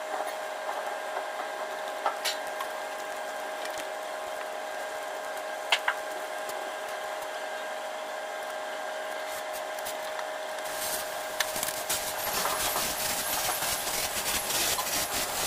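A steady high-pitched mechanical whine, like a small motor running, with a few sharp metallic clicks. About eleven seconds in, a louder, rough rushing noise joins it.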